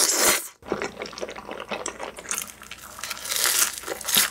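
Close-miked slurping of creamy pasta noodles, loudest in the first half second and cutting off sharply, followed by wet chewing and mouth clicks with more slurps through the rest.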